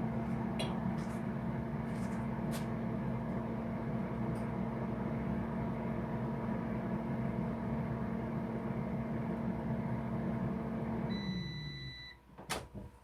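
Countertop air fryer's fan motor running with a steady hum. About eleven seconds in it winds down as a long electronic beep sounds, followed by a sharp click.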